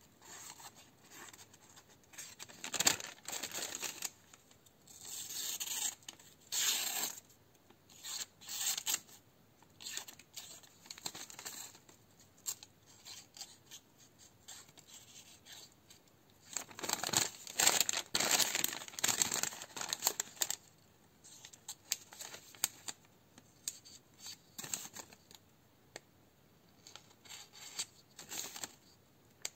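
Thin paper till receipt rustling and tearing as a grafting knife's blade is pushed and dragged through it in a series of irregular strokes, the longest about two-thirds of the way in. This is a test of the knife's edge before sharpening, with the blade tearing the paper more than slicing it.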